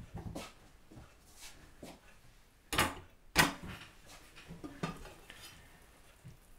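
Stainless-steel stockpot with its lid being carried and set down on a table: two louder metal knocks about three seconds in, among lighter clicks and knocks.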